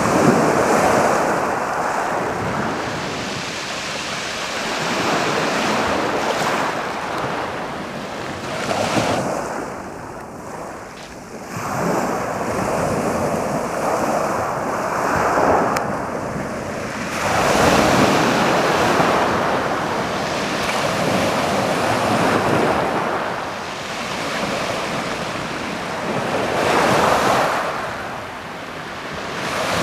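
Slightly stormy sea waves rolling in and washing noisily over a pebble beach, swelling and falling back in surges every few seconds.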